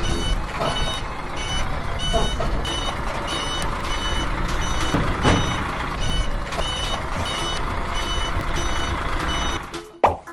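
Battery toy truck's sound effect playing electronic reversing beeps, about two a second, over a steady engine-like rumble. It cuts off near the end, followed by a single knock.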